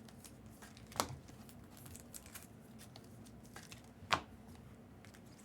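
Trading cards being handled on a table: faint rustling and light ticks, with two sharper taps, one about a second in and one about four seconds in.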